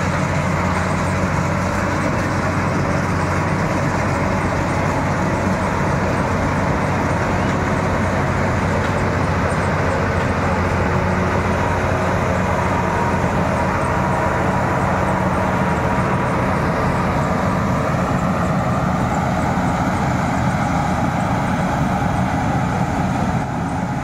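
Marksan K-BOS MS1200 combine harvester running steadily while it cuts rice: an even engine drone mixed with the noise of the harvesting machinery. It gets slightly fainter near the end.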